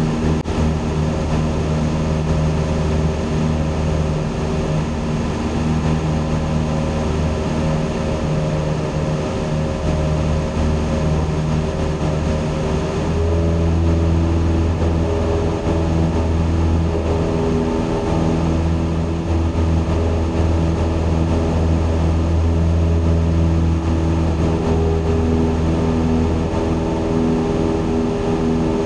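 Steady drone of a single-engine light airplane's piston engine and propeller in cruise, heard from inside the cockpit. It grows slightly louder about halfway through.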